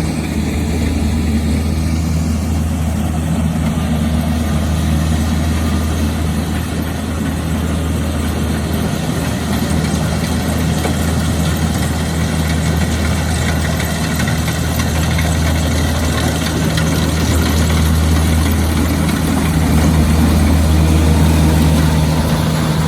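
Engine of a harvesting machine running steadily at constant speed, a deep even hum that gets a little louder near the end.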